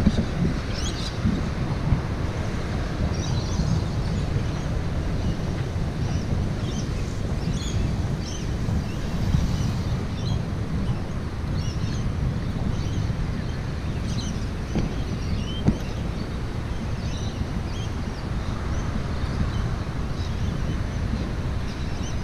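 Wind buffeting the microphone of a camera carried on a moving bicycle, a steady low rumble, with short high bird chirps scattered through it.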